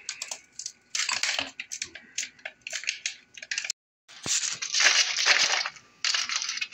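Plastic ice cube tray being twisted and bent to crack the frozen cubes loose: bursts of crackling and sharp clicks as the ice breaks free of the plastic, the longest burst a little over halfway.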